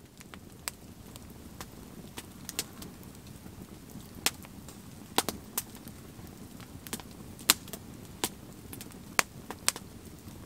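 Wood campfire burning: sharp, irregular crackles and pops, roughly one a second, over a steady low hiss.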